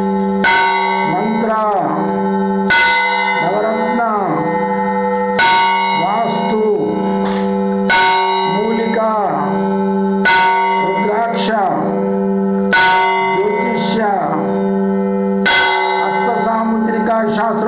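A bell struck about every two and a half seconds, each strike ringing on. Under it are a steady low drone and tones that rise and fall after each strike.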